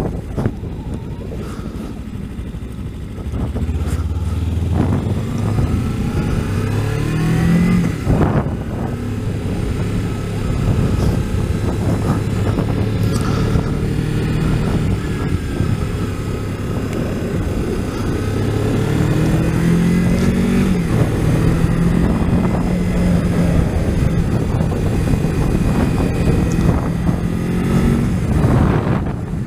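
Kawasaki Ninja 300's parallel-twin engine pulling under way, its pitch climbing and then dropping sharply twice: about eight seconds in and about twenty seconds in. Wind noise on the microphone runs underneath.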